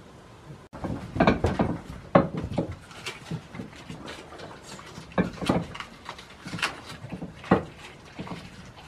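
Goats feeding from red bowls held in a man's hands in a small wooden shed: irregular knocks and clatter against the bowls and boards. The knocking starts just under a second in, after a faint steady hiss.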